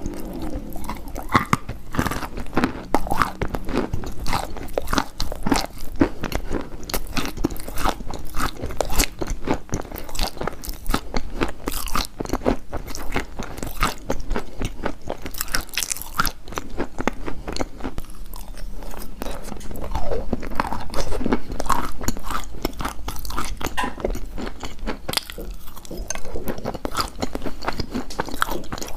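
Someone biting and chewing crunchy chalk: a continuous run of sharp crunches and crackles.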